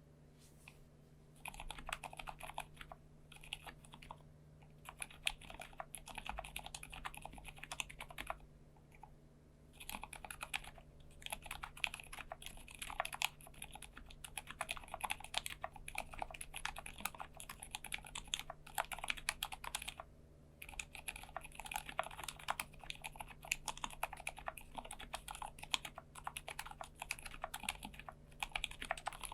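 Typing on a KBD75 V2 mechanical keyboard with silent linear switches (lubed Gateron Silent Black Ink) in a polycarbonate plate: soft, dampened keystrokes in fast runs broken by brief pauses. A steady low electrical hum sits underneath.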